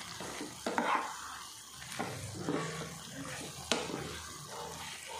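Steel spoon stirring chicken pieces through a wet spice and onion-tomato mix in a nonstick pan on the heat, scraping and clinking against the pan, with a light sizzle underneath. A few sharp clinks stand out, the loudest about three and a half seconds in.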